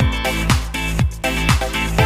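Background dance music with a steady kick-drum beat, about two beats a second.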